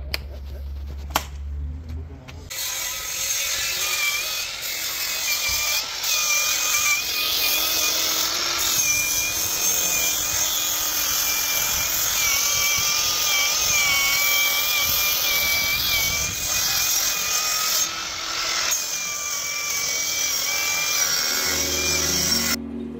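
Angle grinder with a blue abrasive disc running, a steady high whine that wavers in pitch, starting about two and a half seconds in and cutting off suddenly just before the end.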